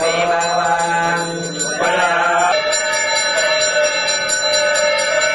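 Sanskrit mantras chanted during a temple puja, with a small hand bell rung rapidly and continuously over them. About halfway through the sound settles into a long held tone.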